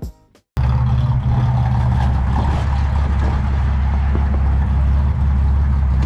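The tail of background music, then an abrupt cut about half a second in to the Datsun 240Z's 2.4-litre straight-six engine running steadily at an even level.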